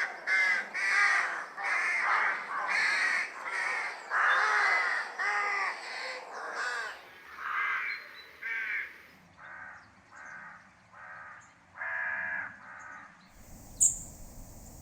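Crows cawing, a run of harsh, rasping caws about two a second that thins out and grows quieter after about seven seconds. Near the end the caws stop and a steady low rumble takes over, with one sharp click.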